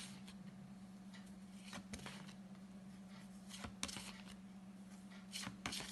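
Faint rustles and light clicks of flashcards being handled, a few soft strokes spaced a second or two apart, over a steady low hum.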